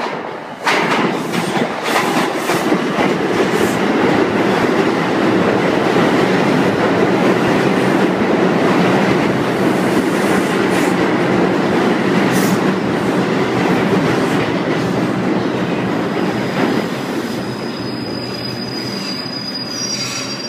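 An R142 subway train enters the underground station and runs past close by. The loud rumble of wheels on rail starts suddenly just under a second in, with occasional clacks, and fades as the train slows. A thin, high, steady squeal comes in near the end as it draws to a stop.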